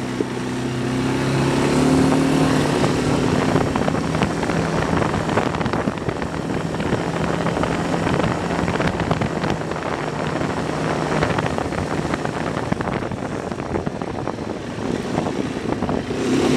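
ATV engine running under way, its pitch rising about two seconds in and then holding steady, over constant rough noise of wind and tyres on a dirt track.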